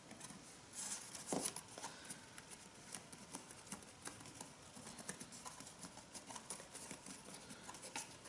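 Faint handling of a cardstock gift bag: fingers press and tap on the paper and turn the bag over, giving scattered light clicks and rustles.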